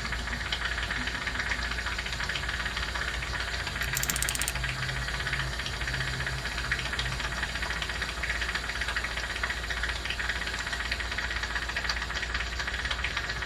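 Jeweler's soldering torch hissing steadily over a low hum, with a brief burst of fine clicks about four seconds in.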